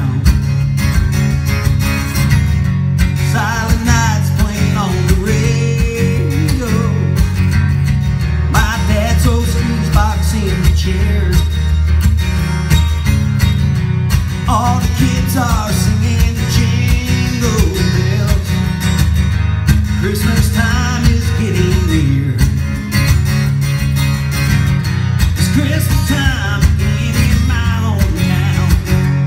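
Acoustic guitar strummed steadily, with a man's voice coming in briefly every few seconds.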